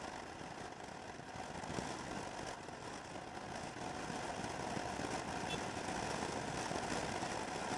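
Motor scooter cruising at about 50 km/h: steady engine running mixed with wind rush on the rider's microphone, growing slightly louder in the second half.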